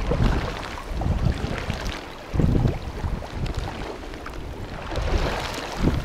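Wind gusting on the microphone over choppy sea water, with water splashing and sloshing as a gill net is hauled in by hand; the gusts come near the start, about two and a half seconds in, and again at the end.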